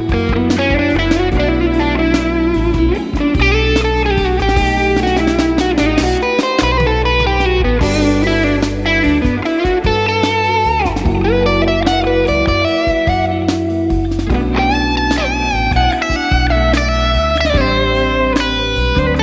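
Fender American Professional Deluxe Shawbucker Telecaster electric guitar playing a lead line over a backing track, with bent notes and vibrato in places.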